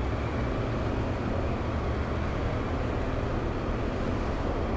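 Steady low rumble and hum of idling engines and machinery on a ferry's enclosed vehicle deck.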